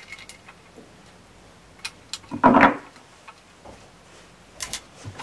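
A filament holder being screwed by hand onto the back panel of a 3D printer: scattered light clicks and taps, with one short, louder rub about halfway through.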